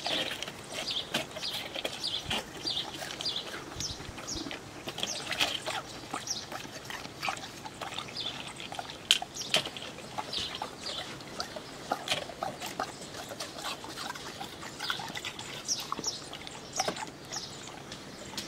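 Two golden retrievers licking and chewing shaved ice off a glass tabletop: an irregular run of wet lapping, smacking and crunching clicks, several a second.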